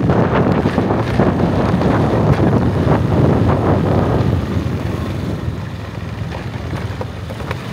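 A vehicle travelling along a road, with wind buffeting the microphone. The noise eases a little about four seconds in.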